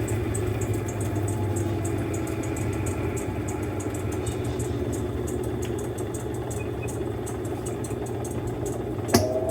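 Mueller Popmatic 8 kg washing machine running with a steady low motor hum and light rhythmic ticking. Near the end a sharp click is followed by a rising whine as the motor starts up again.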